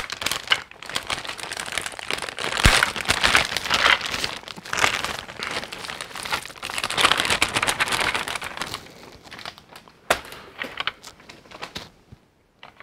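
Clear plastic packaging bag crinkling and rustling as it is handled and opened. The crinkling thins out to a few light clicks and rustles about nine seconds in.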